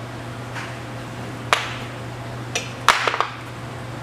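Metal clinks and knocks of hand tools and loose parts being handled while a motorcycle chassis is taken apart: a few sharp strikes, one about a second and a half in and a quick cluster near three seconds. A steady low hum lies underneath.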